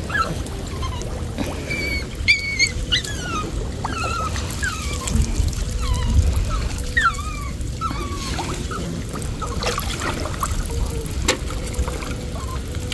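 Water sloshing and lapping as a person wades chest-deep through a canal. A small bird chirps repeatedly over it, short quick notes through the first several seconds that stop about two-thirds of the way in.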